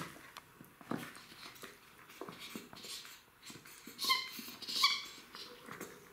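Two Jack Russell Terrier puppies play-fighting over a toy, with scuffling and small knocks throughout. Two short high-pitched squeals come about four and five seconds in.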